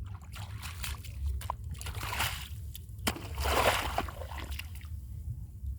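Water and wet sand sloshing and splashing, with two louder wet bursts about two and three and a half seconds in and a few sharp clicks, over a steady low rumble.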